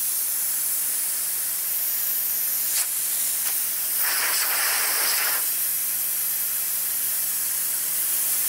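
Compressed air hissing steadily out of a dry ice blaster's precision gun, purging condensed moisture from the hose until the air runs dry. About four seconds in, the hiss swells and fills out for just over a second.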